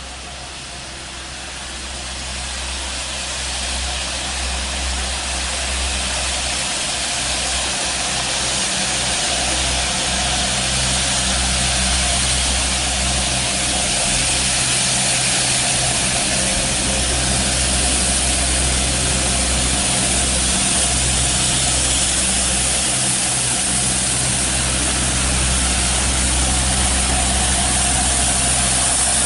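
Diesel locomotive hauling a Network Rail train of tank wagons slowly past, its engine running steadily with a low hum under the rolling noise of the wheels. It grows louder over the first ten seconds or so as the train comes alongside, then holds steady as the wagons pass.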